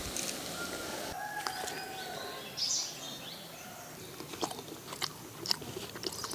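Bites and crunching of a crisp, roasted gendathadya rice cake being eaten, as a series of sharp crackly bites from about four seconds in.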